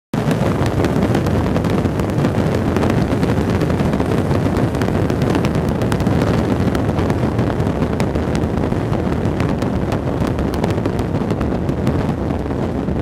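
Strong wind buffeting the microphone: a steady, loud, rushing rumble, with many small sharp ticks scattered through it.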